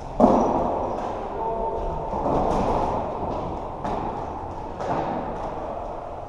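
Floorball play in an echoing sports hall: a loud sharp knock about a quarter second in, ringing out, then several lighter knocks of sticks and the plastic ball.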